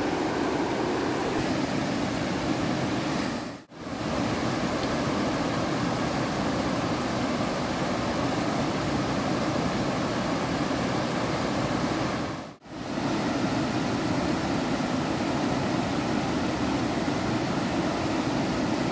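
Shallow rocky river rushing over rapids: a steady noise of churning water that drops out briefly twice.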